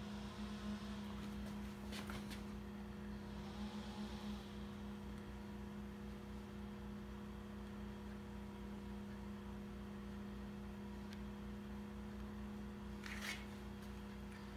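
Faint steady electrical hum, with a few light clicks about two seconds in and a brief rustle near the end.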